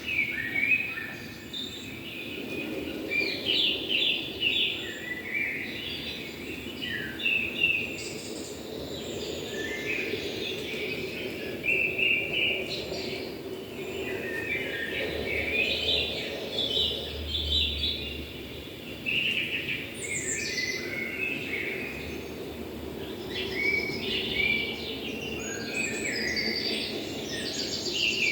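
Several small birds singing and chirping in quick, overlapping phrases throughout, over a steady low hum.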